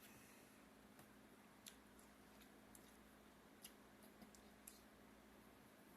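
Near silence: room tone with a steady low hum and a few faint, short clicks spread through it.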